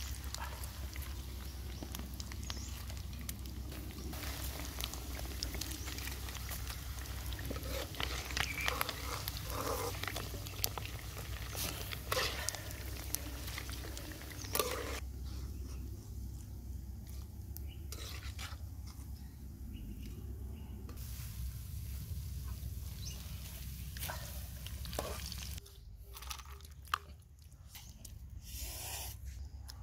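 Hot oil sizzling in a wok as battered fried eggs are scooped out with a metal spatula, with sharp clicks and scrapes of the spatula against the pan. The sizzle thins out about halfway through, and near the end it gives way to a few soft knocks.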